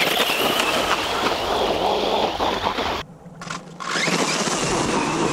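Brushless electric motor of a JLB Cheetah RC truck whining at high revs as its 3D-printed paddle wheels churn water and wet sand. The sound drops away for under a second about three seconds in, then the whine climbs again.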